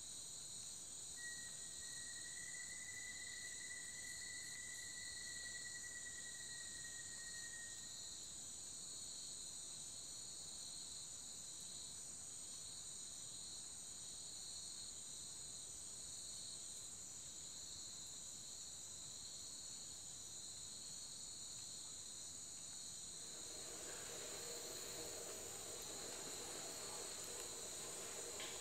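Steady high-pitched insect chorus, a continuous trill in two pitches. About a second in, one thin whistled note holds for about seven seconds. Some five seconds before the end, a lower steady chorus and a faint hiss join in.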